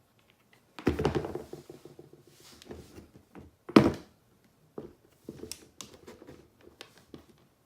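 Sneakers being handled on a hard surface: a dull thud about a second in, a sharper knock near the middle, then lighter taps and rustling.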